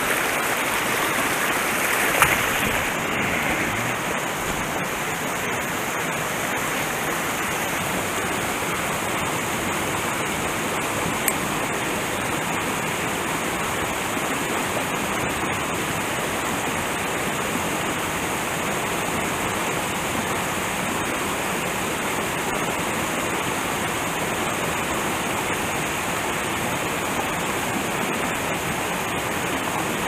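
Small mountain brook rushing over rocks and little cascades: a steady wash of running water.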